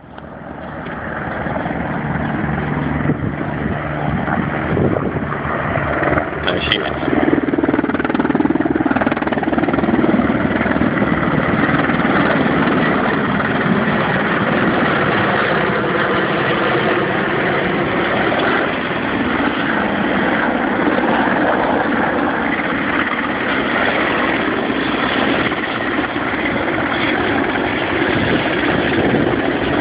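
Two RAF Merlin helicopters flying low overhead, making loud, steady rotor and turbine noise that swells over the first couple of seconds and then holds.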